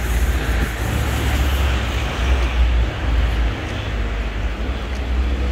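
Road traffic noise: vehicles running past on a road, a steady low rumble.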